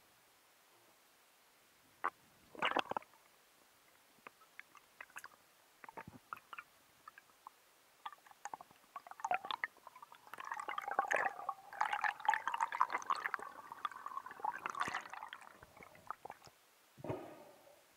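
Underwater gurgling and bubbling with scattered clicks, picked up by a diving camera in its housing. There is a short burst about two and a half seconds in, then a dense stretch of bubbling with a wavering pitch from about ten to fifteen seconds in.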